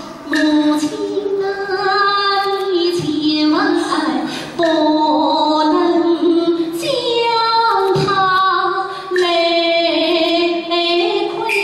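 A woman singing a Yue (Shaoxing) opera aria: long, held, ornamented notes with vibrato in flowing phrases, with short breaths between phrases about four and nine seconds in.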